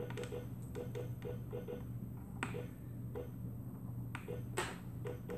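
Rotary control knob on an Edan iM8 patient monitor being turned and pressed to step through its menus: a string of small, irregular clicks, a few a second, with two louder clicks about two and a half and four and a half seconds in.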